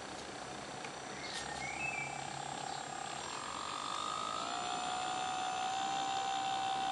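Whine of the hydraulic pump of a radio-controlled Menzi Muck walking excavator model as the arm and bucket move. The pitch steps up about three seconds in, and a second, lower tone slides up and holds from about four and a half seconds.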